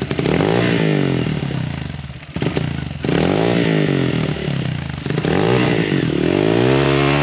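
Dirt bike engine revving in three rising and falling surges under load as the rider tries to power it out of a gully.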